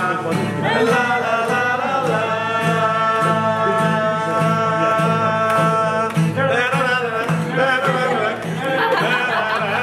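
Live singing to a strummed acoustic guitar, with a steady strumming rhythm under the voice and one long held note in the middle.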